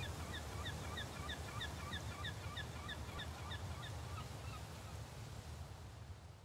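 Seaside ambience: a low steady rush of wind and surf under a bird calling in a fast series of short, sharp notes, about three a second. The calls fade out about four and a half seconds in, and the whole sound fades down near the end.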